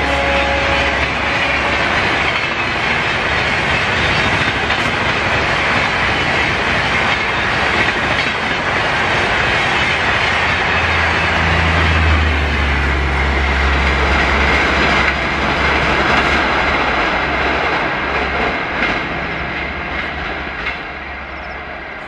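Coaches of a Rajdhani Express train rushing past at about 130 km/h: a loud, steady noise of wheels on rail with clickety-clack over the joints and a low rumble. The tail of the WAP-7 locomotive's horn dies away in the first second or two, and the noise fades near the end as the train draws away.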